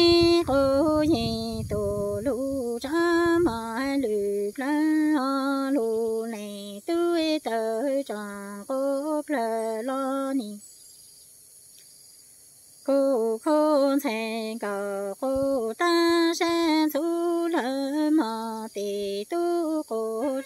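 A woman singing Hmong kwv txhiaj, unaccompanied, in long held, wavering phrases. About halfway through she stops for about two seconds, then resumes.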